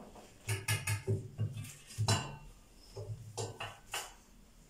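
Kitchen utensils clinking and knocking against dishes: a string of short, sharp clinks in small clusters, with quieter gaps between.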